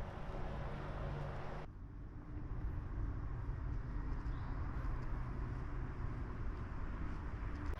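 Steady low rumble of heavy construction machinery engines running in the distance.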